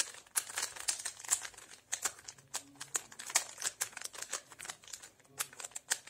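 A 3x3x3 Rubik's cube being turned fast: its plastic layers clack in a quick, irregular run of clicks, several a second.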